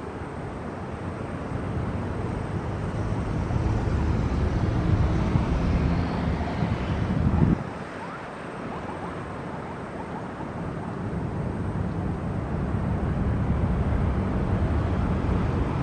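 Jet engine rumble of a Boeing 787-8 airliner on landing approach, heard as a low, steady noise. It swells, drops off suddenly about halfway through, then builds again.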